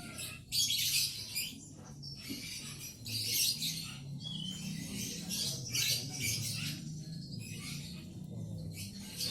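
Male lovebird chattering in short, harsh, shrill bursts, several times.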